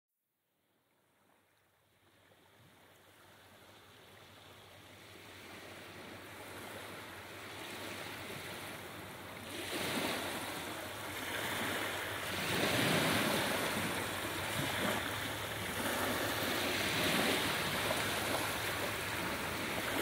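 Sea waves washing onto a beach, fading in from silence over the first several seconds, with louder surges of surf every few seconds.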